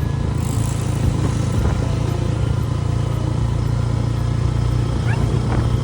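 Steady low hum of a running vehicle engine. Near the end, a Siberian husky gives a short rising whine.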